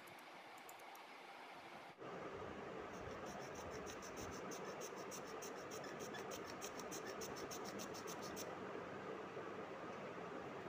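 Metal spatula knife scraping the sides of a plaster of Paris cube, trimming it to shape: a quick, even run of short scratchy strokes from about three seconds in until a little past eight seconds.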